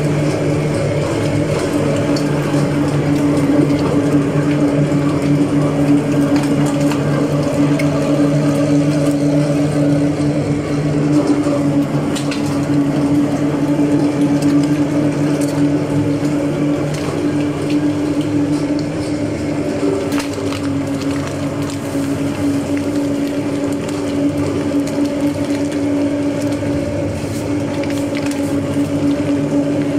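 Electric meat grinder running steadily with a constant motor hum while chunks of raw meat and fat are fed in and minced, with scattered short clicks.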